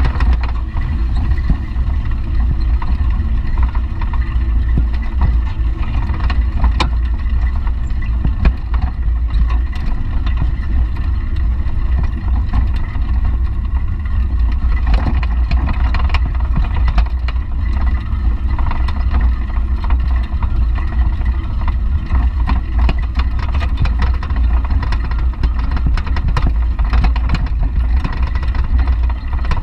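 Wind buffeting a GoPro's microphone as a beach cruiser bicycle rolls along, a steady low rumble with scattered light clicks and rattles from the bike's metal basket.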